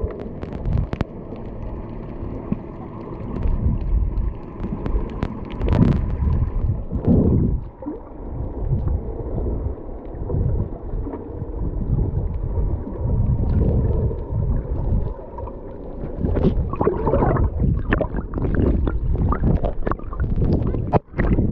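Muffled water sloshing and gurgling around a snorkeller's camera at the surface: a steady low churn with irregular splashy knocks, busier in the last few seconds.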